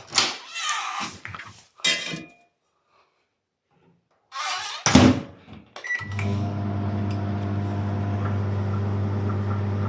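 Microwave oven being loaded: handling noises and the door shutting with a loud clunk about five seconds in, a short keypad beep, then the oven starts and runs with a steady hum to heat a DVD.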